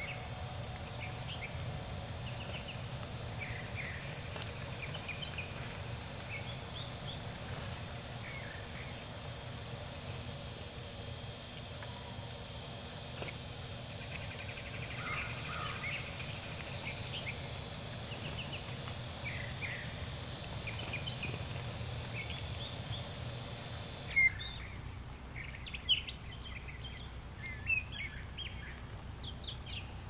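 A steady, high, pulsing insect trill with scattered bird chirps over it. About 24 seconds in, the trill stops abruptly and a few sharper, louder bird chirps come through.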